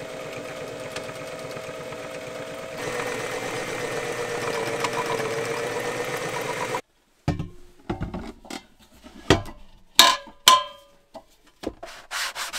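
Electric sewing machine stitching steadily, running faster a few seconds in and then stopping abruptly. A few scattered knocks and clunks follow, and near the end hand sanding of wood begins with quick, regular back-and-forth strokes.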